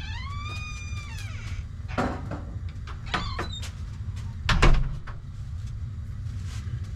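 A door squeaking as it opens, a long squeal that rises and then falls over the first second and a half, followed by a few knocks and a heavier thump about four and a half seconds in. Under it runs a water heater's low, steady grumble.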